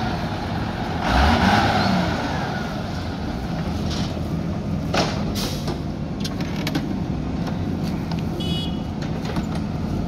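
Heavy diesel engines running steadily: the loaded flatbed lorry and the backhoe loader, with the engine note swelling briefly about a second in. A few sharp knocks and a short high chirp near the end.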